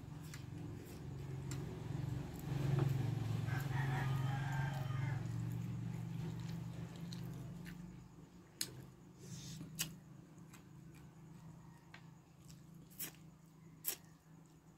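A rooster crowing in the distance, heard over a low drone that swells and fades over the first half. Then several sharp clicks of a spoon and fork against a plate.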